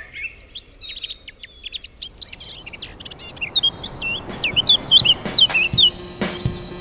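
Birds chirping and singing in many short, quick calls, over a wash of noise that swells from about halfway. Near the end a few sharp beats and a low tone come in as music starts.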